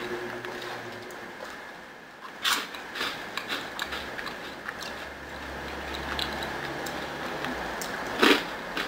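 Chewing and biting crunchy puffed snacks close to the microphone: scattered crisp crunches, with a louder crunch about two and a half seconds in and another bite near the end, over a faint steady hum.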